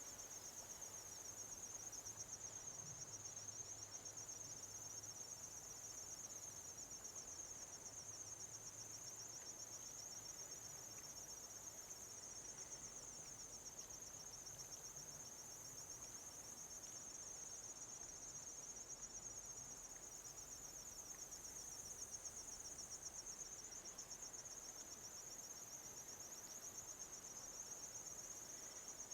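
Insect chorus: a faint, steady, high-pitched trill with a very rapid pulse that does not let up.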